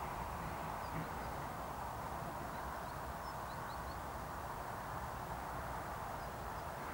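Outdoor countryside ambience: a steady distant hiss with a low rumble beneath, and a few faint, short bird chirps about three to four seconds in.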